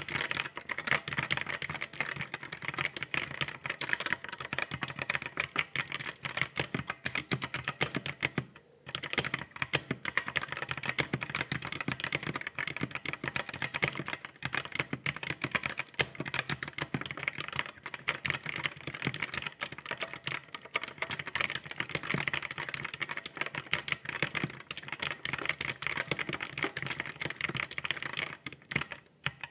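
Computer keyboard being typed on rapidly and continuously, a dense run of key clicks with a brief pause about eight and a half seconds in.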